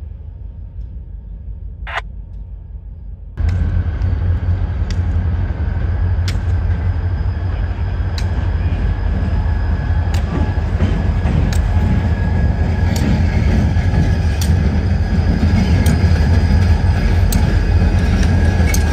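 EMD SD40-2R diesel-electric locomotives passing close by, their 16-cylinder two-stroke engines making a deep, steady rumble that starts suddenly a few seconds in and grows louder, with sharp clicks repeating about every second and a half.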